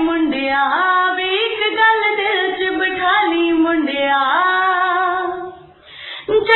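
A song with a woman singing long, sliding melodic lines, dropping out briefly near the end before the singing picks up again.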